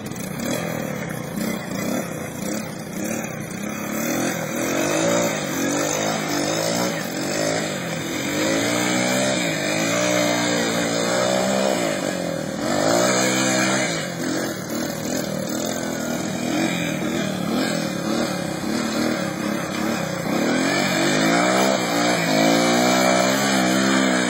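Engine of a 1984 three-wheeler ATV revving up and down repeatedly as it churns through a mud pit, its pitch rising and falling several times.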